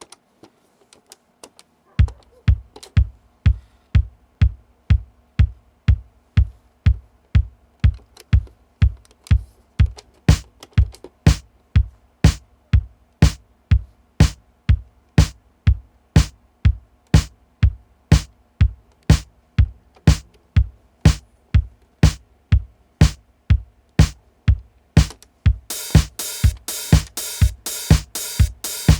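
Roland TR-707 digital drum machine playing a steady four-on-the-floor pattern after repair: a bass drum about twice a second with lighter drum hits between. A few faint clicks come before the beat starts, and near the end a bright hi-hat-like part joins in on top.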